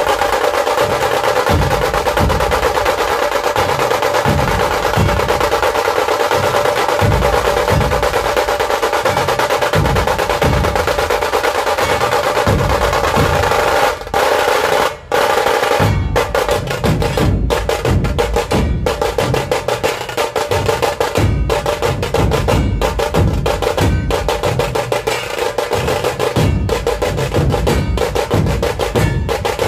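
Dhol-tasha ensemble playing: tashas beaten in fast, continuous rolls over heavy strokes on large barrel dhols. Two brief breaks come about halfway, after which the dhol beat is steadier and stronger.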